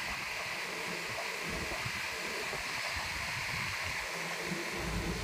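Steady hiss of background noise, with soft low bumps as a plastic selfie-stick tripod is handled.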